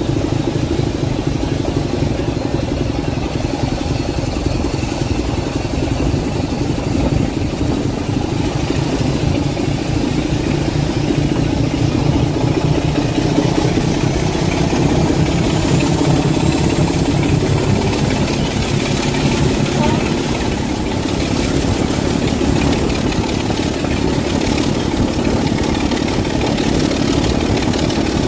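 BR Class 25 diesel-electric locomotive's Sulzer six-cylinder diesel engine running steadily with a rapid low beat. A faint high whine rises in pitch through the middle.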